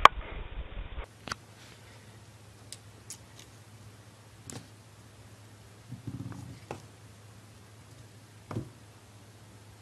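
A small animal's paws tapping faintly on a wooden floor: a few scattered clicks over a low steady hum. They follow a brief louder, noisy stretch that cuts off abruptly about a second in.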